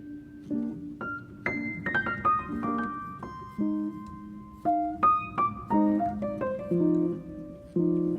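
Background piano music: single notes and chords struck in an unhurried melody, each ringing and fading.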